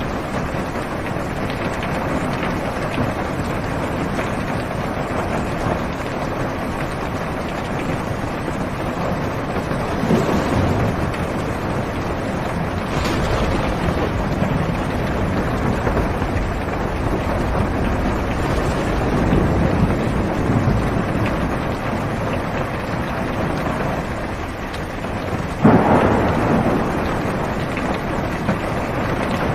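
Steady heavy rain drumming on a car's roof and windows, heard from inside the car. Thunder rumbles several times, with a sharper, louder clap near the end.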